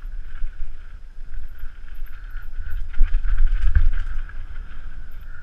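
Mountain bike riding fast down a rough dirt forest trail, heard from a helmet camera: wind rumbling on the microphone and the bike rattling over the ground, with two heavier knocks from bumps about three seconds in and just before four seconds.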